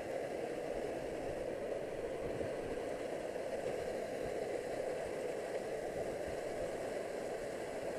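Steady rushing of a waterfall pouring down a canyon wall, an even roar with a faint, uneven low rumble beneath it.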